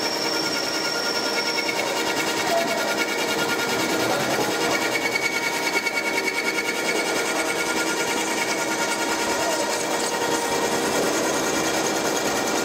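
A machine tool's cutter cutting a brass disc under flood coolant: a steady, fast-repeating mechanical cutting noise with several steady whining tones from the machine.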